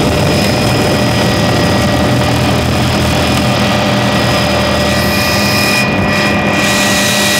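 Helicopter engine and rotor noise heard from inside the cabin: a loud, steady drone with a thin high whine over it.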